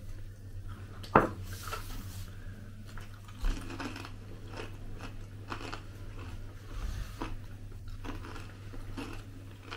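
Someone eating close to the microphone: irregular crunching and chewing strokes, with a sharp click about a second in and a knock a few seconds in, over a steady low hum.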